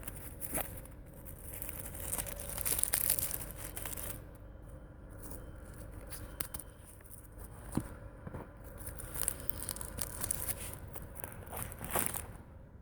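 Rough rasping scrapes for about the first four seconds, then quieter handling with a few sharp clicks and taps.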